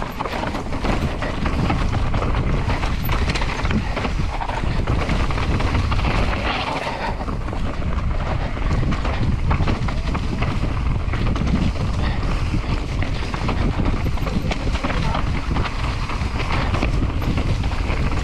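Enduro mountain bike ridden fast down a rough trail: wind buffeting the action camera's microphone, over a constant clatter of knocks and rattles from the bike and tyres on the ground.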